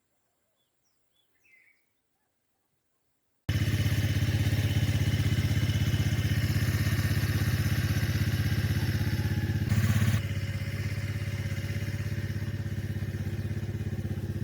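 Near silence with a few faint chirps, then about three and a half seconds in a loud engine cuts in abruptly and runs steadily with a low, even pulse; a brief louder rush of noise comes about ten seconds in.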